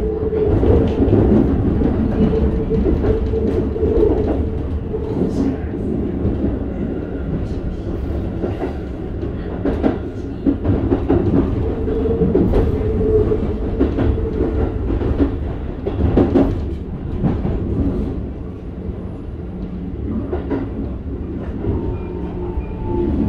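Keikyu 1000 series electric train with Toyo IGBT-VVVF traction equipment, running sound heard inside the car: a steady rumble of wheels on rail with scattered track-joint clicks and a motor hum. Near the end a whine falls in pitch as the train slows.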